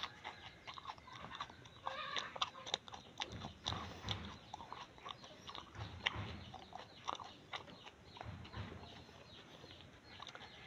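A person chewing unripe green saba banana with the mouth open, faint and irregular, with many small clicks and smacks.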